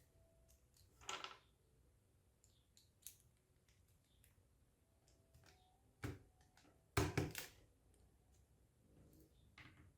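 Scattered small clicks, taps and knocks of tools and plastic and metal laptop parts being handled while the hard drive is detached and unscrewed: a short scrape about a second in, and the loudest, a quick run of knocks, about seven seconds in.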